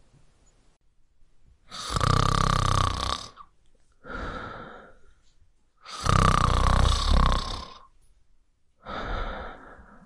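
A man snoring: two loud snores with a deep rumble, about four seconds apart, the first starting almost two seconds in, each followed a second later by a shorter, quieter breath.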